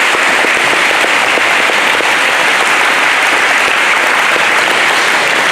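Audience applauding in a gymnasium or auditorium, a dense and steady round of clapping.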